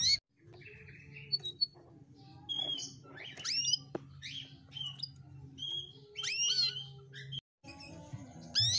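Domestic canary giving short chirps and quick rising-and-falling whistled calls in scattered bursts, not a continuous song, over a low steady hum. The sound cuts out briefly twice, near the start and again near the end.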